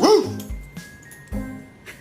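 A dog gives one short, high bark right at the start, over background music.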